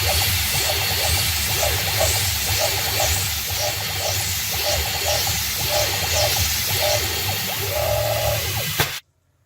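CNC-converted PM-25 milling machine drilling with a 13/64" drill: the spindle runs with a steady hum under the hiss of mist coolant, and short tones recur as the stepper-driven axes move and plunge from hole to hole. The sound cuts off abruptly near the end.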